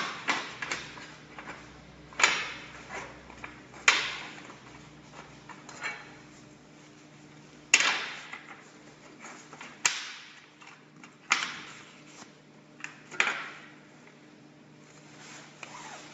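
CNC aluminium coil bending, grooving and cutting machine at work: a steady motor hum under sharp knocks that come at irregular intervals, about half a dozen, each dying away briefly.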